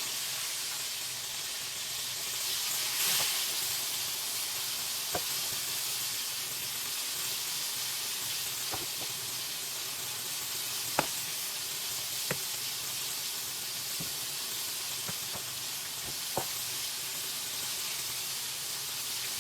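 Meat frying in a skillet: a steady sizzle that swells briefly about three seconds in, with a few sharp clicks of a fork and knife against the pan.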